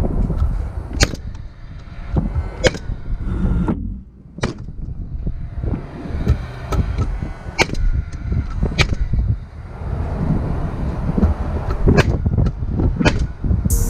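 Paslode Impulse gas-powered framing nailer firing nails: about seven sharp shots, one to three seconds apart, over a steady low rumble.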